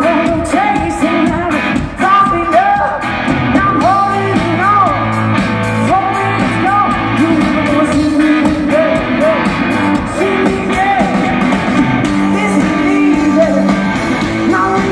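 Live garage blues-rock from a two-piece band: distorted electric guitar and a full drum kit, with a singer's voice over them, played loud through a festival PA.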